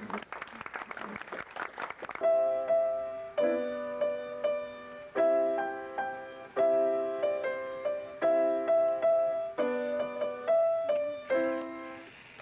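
A child playing a grand piano: slow, sustained chords struck about every second and a half, each ringing and fading before the next. A rough rustling noise comes before the playing starts, about two seconds in.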